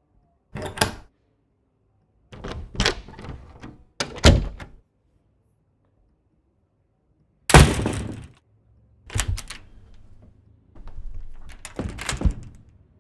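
A string of heavy impact sound effects played from the Krotos Studio Genesis sound pack: about six separate thuds and crashes with a breaking, debris-like tail, with gaps of silence between them. The loudest hit is about halfway through.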